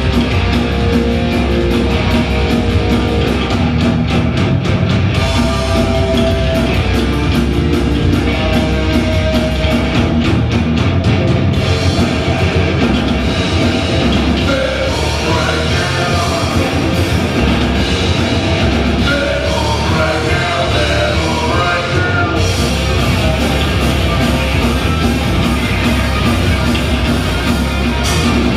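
A live rock band plays loudly and steadily on two electric guitars, bass guitar and a drum kit, with cymbals ringing throughout.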